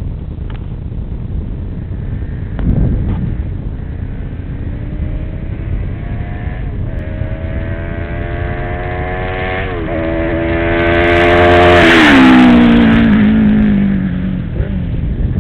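Suzuki GSX600F's inline-four engine accelerating hard toward the listener, its pitch climbing through the gears with two brief dips at the upshifts. It passes close at speed about twelve seconds in, loudest there, with the pitch dropping as it goes by and then fading.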